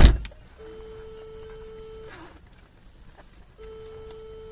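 A loud thump at the start, then a steady electronic warning tone that sounds twice, each about a second and a half long with a pause between.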